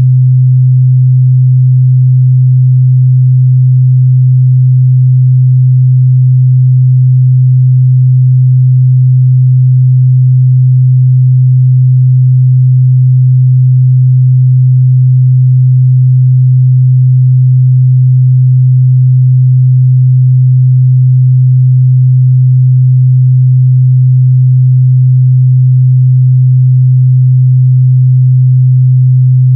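Steady 128 Hz sine-wave test tone, a single unchanging low hum with no variation in pitch or level.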